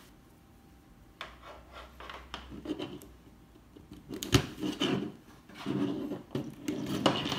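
Hard plastic being handled: a 3D-printed distribution box and Anderson Powerpole connectors rubbing, scraping and clicking as they are fitted together. There are a few light clicks at first, then a busier run of scraping and clicks from about four seconds in, led by one sharp click.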